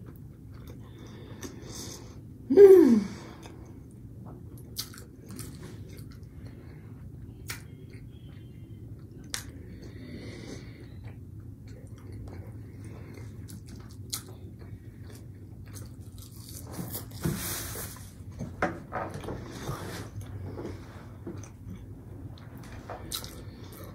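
A person chewing mouthfuls of breaded fish sticks, with small wet mouth clicks and soft crunches. A short hummed 'mm' falling in pitch stands out about two and a half seconds in.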